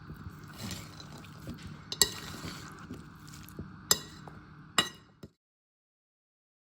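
A spoon stirring a thick chicken salad in a bowl: soft squelching mixing with three sharp clinks of the spoon against the bowl. The sound cuts off completely about five seconds in.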